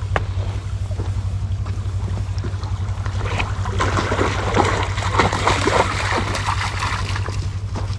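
A vehicle engine drones steadily with a fast, even pulse. Water splashes and rushes for a few seconds from about three and a half seconds in.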